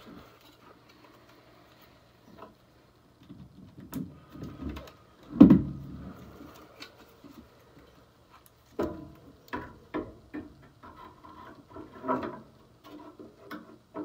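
Handling knocks, clunks and clicks of a replacement furnace inducer motor being brought up and set against the furnace's sheet-metal housing, with one loud thump about five and a half seconds in and a run of small clicks and knocks near the end.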